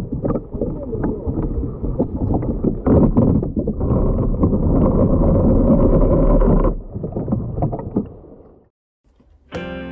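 Water rushing and splashing over the bow of a radio-controlled boat, heard loud and close from a camera on its deck, with a low rumble and many short splashes. It fades out about three-quarters of the way through, and music starts at the very end.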